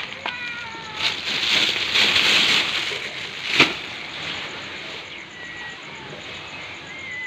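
Dry cat kibble rattling and crunching as a hand scoops and stirs it in a plastic food tray, with hungry kittens mewing: a short meow just after the start and thin, high mews later on. A single sharp knock comes about halfway through.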